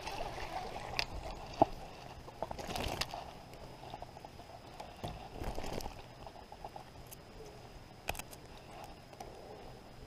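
Handling noises from a freshly landed bass and its lure: scattered rustles and light clicks, with one sharp click about one and a half seconds in.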